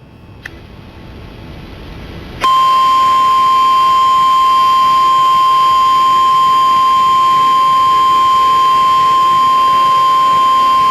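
A hiss rising in level, then about two and a half seconds in a loud, steady single-pitch alarm tone starts and holds: the NOAA Weather Radio 1050 Hz warning alarm tone that precedes a broadcast flash flood warning.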